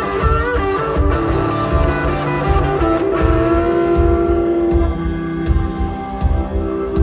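Live country band playing an instrumental stretch: electric guitar holding notes over bass and a steady kick-drum beat, loud on a phone recording from the crowd.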